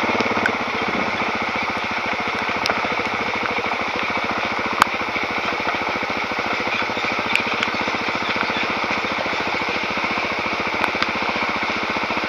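Suzuki DR-Z400S single-cylinder four-stroke dirt bike engine running steadily on a gravel trail, under a constant hiss, with a few sharp ticks scattered through.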